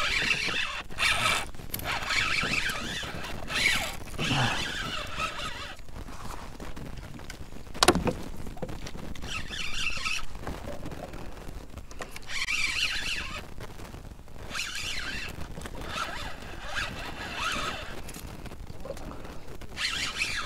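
Spinning reel's drag buzzing in repeated bursts as a hooked fish pulls line off against a hard-bent rod, with one sharp knock about eight seconds in.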